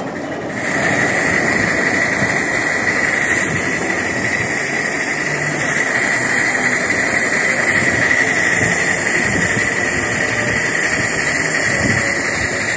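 Miniature live-steam locomotive blowing off steam while running: a loud, steady hiss with high whistling tones starts suddenly about half a second in and carries on, over the rumble of the engine on the track.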